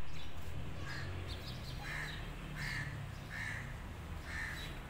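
A bird calling repeatedly outdoors: about six short calls, one roughly every second, over a steady low background hum.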